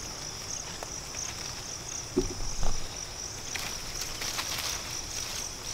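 Steady, high-pitched chorus of insects, slightly pulsing. A couple of short, dull thumps a little over two seconds in.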